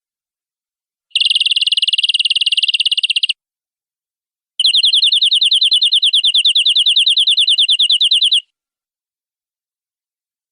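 Domestic canary singing two rolled trills: a very fast, even roll lasting about two seconds, then, after a short pause, a slower pulsed trill of nearly four seconds at about ten notes a second.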